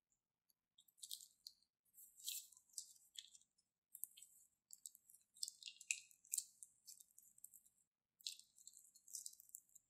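Thin plastic piping bag crinkling and crackling as hands squeeze and knead it, in irregular bursts with short pauses.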